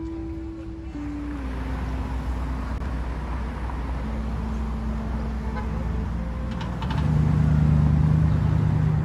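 Street traffic: car engines and tyres rumbling steadily, growing louder about seven seconds in as a car passes close.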